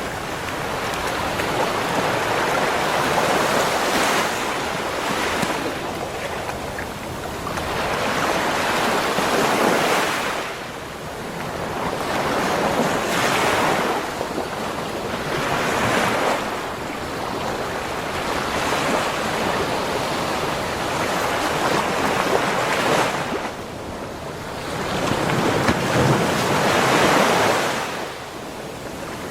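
Ocean surf on a beach shore: waves break and wash up the sand, the rush of water swelling and falling back every few seconds.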